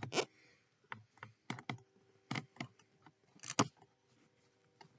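Light plastic clicks, taps and scrapes as the cabin air filter is handled and pulled from its plastic housing, with a louder knock about three and a half seconds in. A faint steady hum runs underneath.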